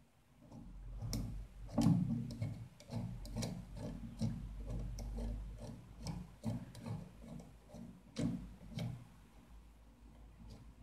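Irregular light clicks and taps, several a second, as an M3 screw and a metal ball-joint rod end are handled and fitted into a black plastic belt connector.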